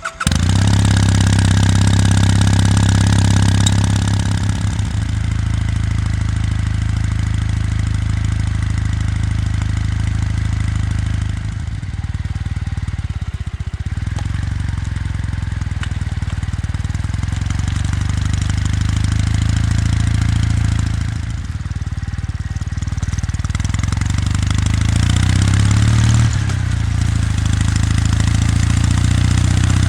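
Kawasaki W800's air-cooled parallel-twin engine running steadily while the motorcycle is ridden, its exhaust note shifting a few times, with brief dips about twelve and twenty-one seconds in.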